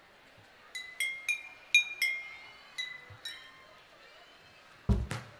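Glass bottles tapped one at a time in a slow tinkling tune: about seven clear ringing notes at a few different pitches. A loud, deep thump comes near the end.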